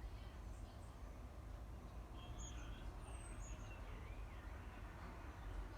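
Faint birds calling, a few short chirps and warbling notes scattered through, over a steady low rumble of outdoor background noise.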